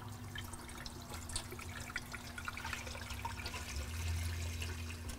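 Caustic carburetor cleaning solution pouring from a plastic jug into a metal paint can full of carburetor parts: a steady trickle of liquid with many small splashes and drips. A low steady hum runs underneath.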